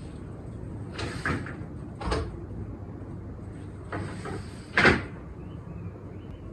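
A door being handled: several short knocks and clunks, the loudest about five seconds in, over a steady low hum.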